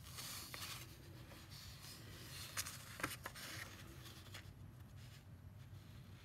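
Paper sheets rustling and sliding as worksheets are handled and swapped, with a couple of light clicks about two and a half to three seconds in, quieter after about four and a half seconds.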